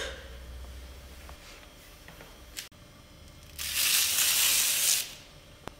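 A sheet of paper being handled: a harsh paper rustle about three and a half seconds in, lasting about a second and a half. There is a faint click shortly before it and another near the end.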